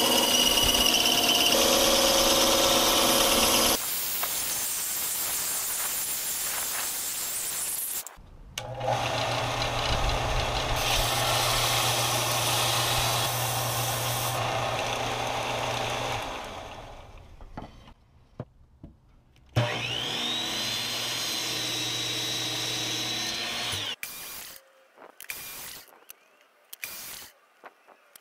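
Woodworking power tools in turn. First a bandsaw cuts through a block of wood. Then a WEN belt and disc sander runs with a steady motor hum while a thin strip of wood is sanded on the belt. Later a motor spins up with a rising whine and holds steady for a few seconds, and near the end come short, clipped tool sounds broken by silences.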